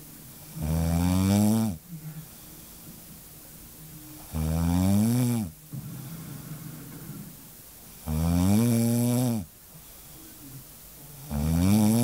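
A sleeping woman snoring: four long, pitched snores, one every three and a half to four seconds, each with a pitch that rises and then falls, with quieter breathing noise between them.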